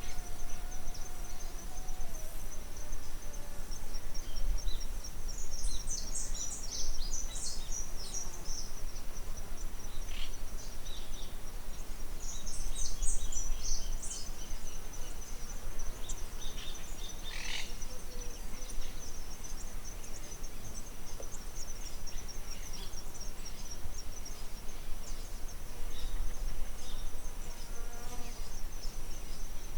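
Outdoor nature ambience: a steady high-pitched insect drone runs throughout, with bird chirps in short bursts and a low rumble underneath.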